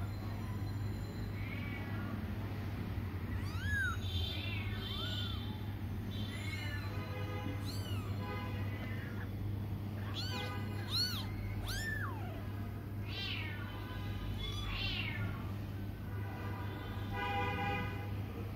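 A litter of newborn Bengal kittens mewing: many short, high-pitched squeaks that rise and fall in pitch, coming every second or so, over a steady low hum.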